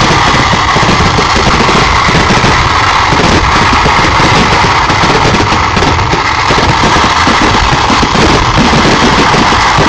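Temple fireworks barrage: a dense, unbroken rattle of firecrackers going off in rapid succession, loud enough to overload the microphone.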